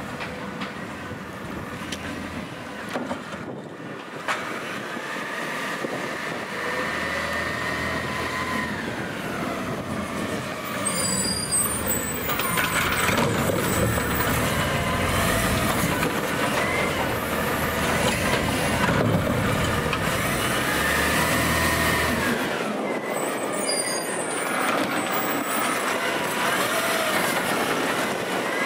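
Automated side-loader garbage truck at work: the engine revs up and down while the hydraulic whine rises and falls in repeated swells. It grows louder about halfway through.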